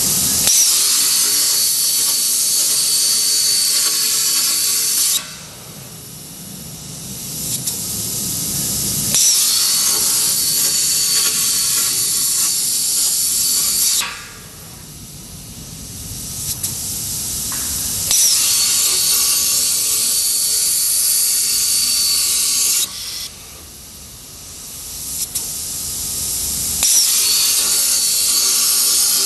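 Plasma cutter arc hissing with a steady high whine, in four stretches of about four to five seconds that each start and stop sharply. Between them a quieter hum slowly builds.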